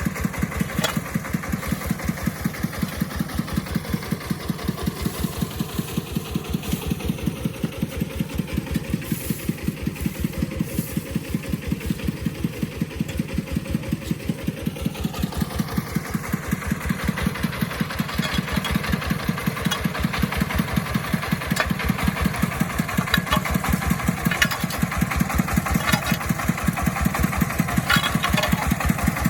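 Agricultural vehicle's engine running with a steady, even chugging beat. More rattle and some sharp clicks join it in the second half.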